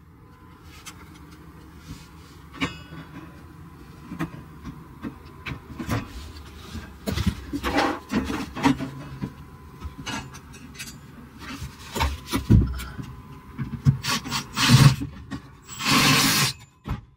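Parts being handled and fitted back together by hand: irregular knocks, clunks and scraping, busier in the second half, with a longer scrape about a second long near the end.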